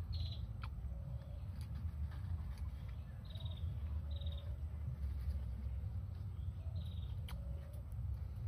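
Birds calling: a short low cooing call repeated every second or so, with a brief high trilled call now and then, over a steady low rumble. A sharp click about seven seconds in.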